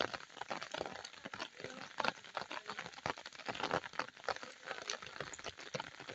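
Footsteps of several people walking in sandals on a wet dirt lane: an irregular run of soft slaps and clicks, several a second.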